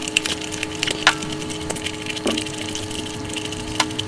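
Close-miked eating sounds: wet chewing and mouth clicks with squishing of saucy curry, a run of sharp crackles, the sharpest about a second in.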